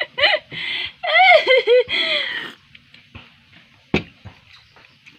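A woman's high-pitched laughter for the first two and a half seconds, then quiet, with a single sharp click about four seconds in.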